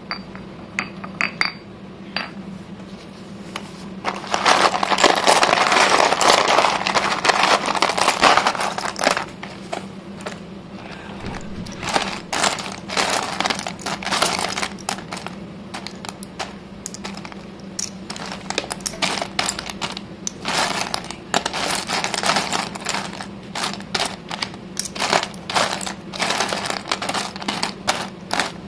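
Stone pestle scraping and grinding in a stone mortar, then a long run of sharp clicks and clatters as slate pencil sticks knock against each other in a tray, over a low steady hum.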